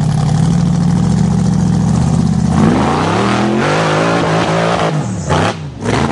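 Off-road 4x4 vehicle's engine running at steady high revs, then revving up and down from about halfway through. Two short loud rushes of noise come near the end.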